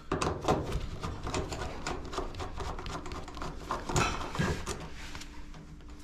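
Screwdriver working the terminal screws on an electric dryer's power-cord terminal block: a run of small, irregular metallic clicks and scrapes, a little louder about four seconds in, as the wires are loosened to be moved.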